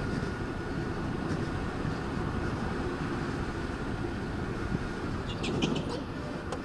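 Electric go-kart driving on an indoor track, heard from on board: a steady low rumble of chassis and tyres with a faint high whine from the drive motor that fades about five seconds in. A few short high ticks come near the end.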